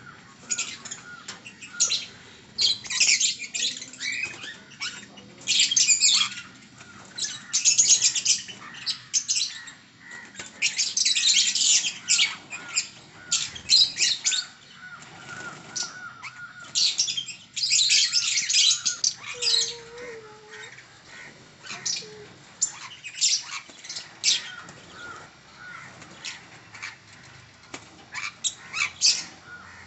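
Small pet parrots, conures and lovebirds, chirping and squawking in repeated short bursts of high calls with brief gaps between them.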